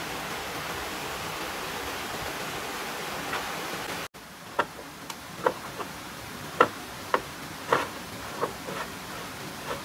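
Steady rush of a waterfall and flowing stream. About four seconds in it cuts off suddenly, and a series of short, hollow knocks follows, one or two a second, as bamboo poles are handled and knocked together.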